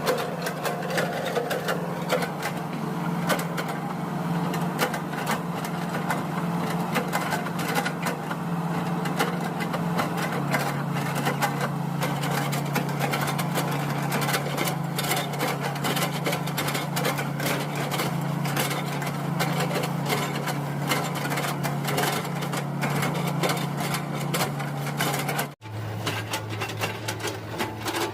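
Hydraulic excavator's diesel engine running steadily, with rapid cracking and knocking as its bucket chops up oil palm trunks. The engine note drops lower after a brief break near the end.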